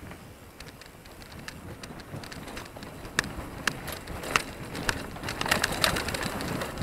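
Mountain bike riding fast down a dirt trail: tyre noise on the dirt with irregular sharp clicks and rattles, growing louder toward the end.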